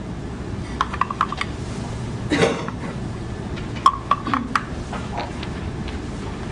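Small wooden Montessori knobless cylinders clicking and knocking against one another and their box as they are picked up and set down, in a few quick clusters of light taps. A short throat noise comes about two and a half seconds in, over a steady tape hiss.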